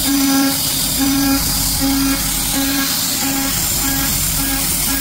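CNC router's spindle and end mill milling 6061 aluminium plate: a steady hiss of mist coolant under a pitched cutting tone that comes and goes in short spells as the cutter bites into the metal.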